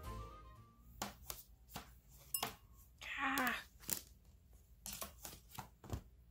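Clear plastic corset boning being handled on a tabletop: a scattering of light clicks and taps, with one short rasping scrape with a falling tone about three seconds in.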